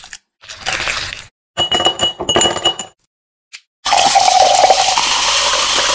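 Grapes crushed with a metal muddler in a glass tumbler, then two bursts of glass and ice clinking. Then grape soda is poured over ice in the glass in a steady two-second stream near the end.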